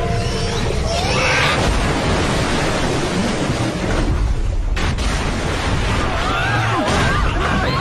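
Loud, dense rush and rumble of churning water as a huge monster surges through a river, with a scream about a second in and several people screaming near the end.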